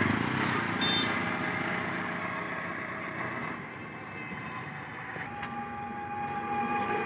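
A road vehicle passing and fading away. About five seconds in a steady held tone starts and carries on, like a distant horn or siren.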